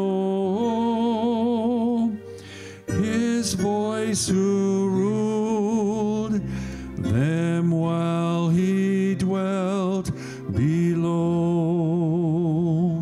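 Solo voice singing a slow song in long held notes with a wide vibrato, phrase after phrase with short breaths between.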